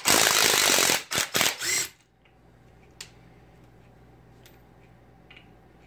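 Snap-on 3/8-inch 18-volt cordless impact wrench hammering on a nut for about a second, then a few short trigger bursts, stopping about two seconds in. A single click follows about a second later.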